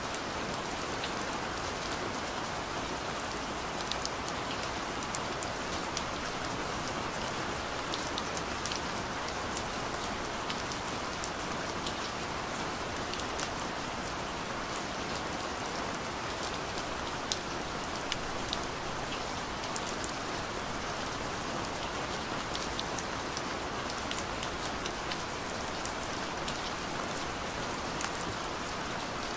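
Steady rain: an even hiss with frequent scattered drop ticks.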